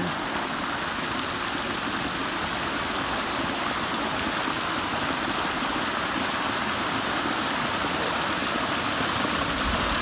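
Small creek spilling over a low rocky ledge: a steady rush and splash of running water, growing a little louder toward the end.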